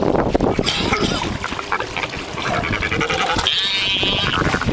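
Albatrosses and a giant petrel squabbling at close range, giving short calls over a steady low rumble, with one rapid quavering call about three and a half seconds in.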